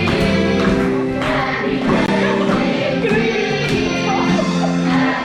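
Music with singing voices, held notes over an instrumental backing.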